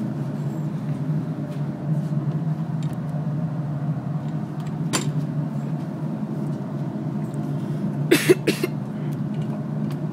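Steady low hum of an idling vehicle engine, with one sharp crack about five seconds in and a quick pair of louder cracks about eight seconds in.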